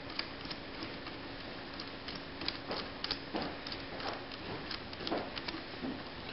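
Hand screwdriver with a hex bit snugging socket head cap screws into a rifle's steel gas-tube cover: scattered light metallic clicks, irregular, over a faint steady hum that fades out about two-thirds of the way through.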